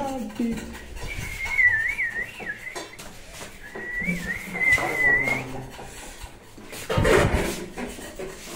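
A person whistling two short phrases of a tune, the pitch wavering up and down, with a pause of about a second between them. A brief loud burst of noise follows about seven seconds in.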